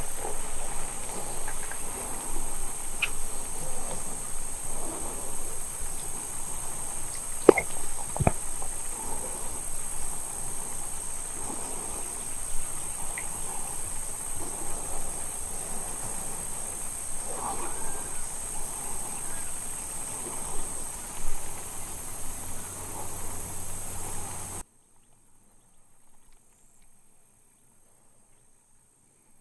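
Steady high-pitched insect chorus, likely crickets, over a faint rustle of grass and air. Two sharp clicks come about seven and eight seconds in. The sound cuts out abruptly to near silence a few seconds before the end.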